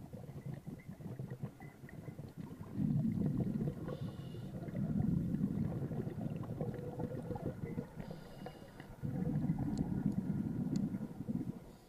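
Scuba diver breathing through a regulator, heard muffled through an underwater camera housing: three long bursts of low bubbling rumble as the exhaled air escapes, with short hisses of inhalation between them.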